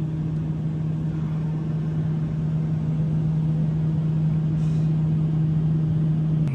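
Steady engine drone heard inside the cabin of a small passenger aircraft in flight, with one strong, unchanging low hum over a broad rushing noise.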